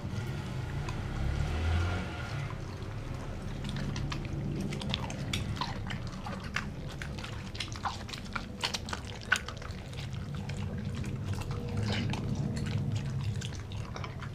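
A dog eating raw meat up close: wet chewing, licking and smacking, with a run of short sharp clicks in the middle, over a low steady rumble.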